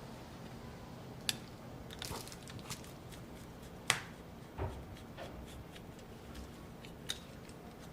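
Small repair tools and laptop parts being handled on a workbench: a few scattered sharp clicks and taps, the loudest about four seconds in, with light scuffling and a soft thump in between.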